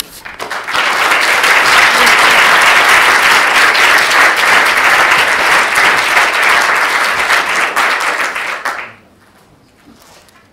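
Audience applauding, swelling up within the first second and stopping fairly suddenly about nine seconds in.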